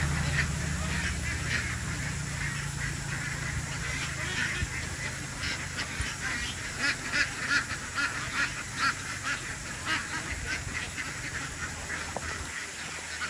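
A flock of farmed ducks quacking, many short calls overlapping and busiest in the middle, over a low steady hum that stops near the end.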